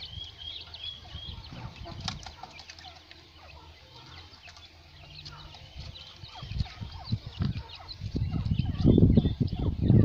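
Female quail calling in a run of short, high chirps, several a second, near the start and again a few seconds in. Loud low thumps and rumbling come near the end.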